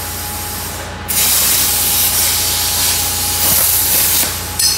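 CNC plasma cutter torch cutting 14-gauge sheet at 45 amps: a loud steady hiss of the arc and air that starts abruptly about a second in, over a steady low hum. The torch is running at about 134–135 arc volts, close to its 130-volt preset.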